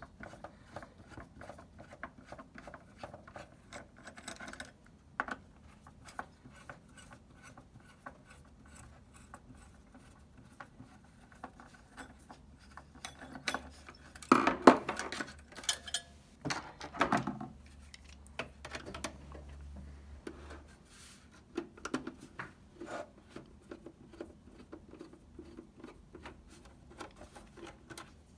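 Screwdriver turning out small screws from a PS4's metal heatsink brace and shield plate: a steady run of light metal clicks and scratches, with a few louder clatters about halfway through.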